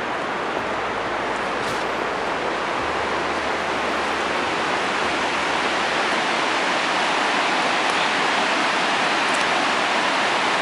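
Fast, shallow river running over a wide stony bed: a steady rush of water.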